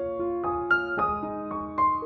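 Background piano music: a gentle melody of notes struck one after another, each ringing on.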